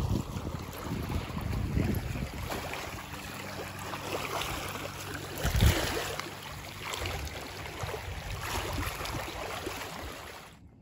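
Wind buffeting the phone's microphone with small waves lapping at the shore of a lake, and a louder thump about halfway through. The sound cuts off sharply near the end.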